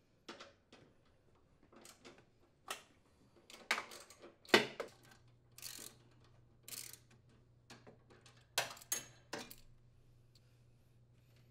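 Irregular metallic clicks and clinks of a socket wrench and steel mounting bolts as the steering support bolts on a riding mower are worked loose and lifted out. The sharpest knock comes a little over four and a half seconds in.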